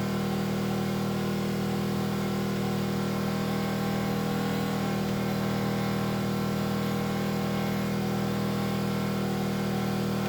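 Enkeeo SC2300i inverter generator's 79cc four-stroke OHV engine running steadily under load from a 1,500-watt space heater, a constant engine hum.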